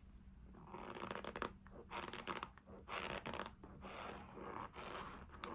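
A person chewing a mouthful of Argo cornstarch close to the microphone: a run of crunchy chews starting about a second in.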